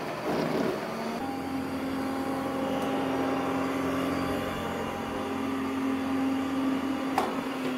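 Ecovacs Deebot Ozmo 950 robot vacuum running: a brief scuff as a hand touches its lid, then a steady motor hum with a whine that sets in about a second in. There is a sharp click near the end, and the hum starts to fall in pitch as it winds down.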